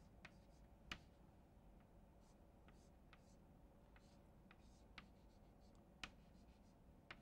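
Chalk on a blackboard, heard faintly: scattered light taps and short scratches as a resistor zigzag and capacitor plates are drawn, the sharpest taps about a second in and near six seconds.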